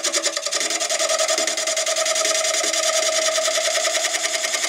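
Wood lathe running with an oak pot-call blank mounted: a steady hum with a fast, even pulsing and a hiss.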